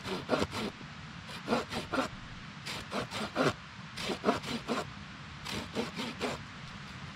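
A blade making quick back-and-forth sawing strokes, in about five short bursts of three to five strokes each.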